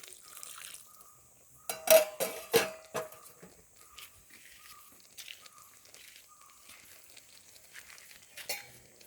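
A metal utensil knocking and scraping against an iron cooking pan holding curry with added water, with a cluster of ringing knocks about two seconds in, then smaller clicks and faint liquid sounds.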